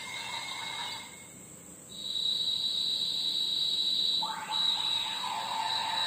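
Electronic sound effects from an Ultraman Decker toy transformation device's small speaker as it reads an Ultraman card: a short sound, a brief pause, a steady high electronic tone held for about two seconds, then a change to a lower tone about four seconds in.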